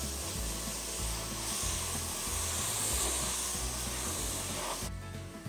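Pressure washer wand spraying water onto a truck's painted fender, a steady hiss that cuts off suddenly near the end.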